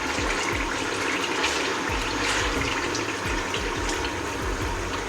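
Tomato paste frying in hot vegetable oil: a steady sizzle with small scattered crackles.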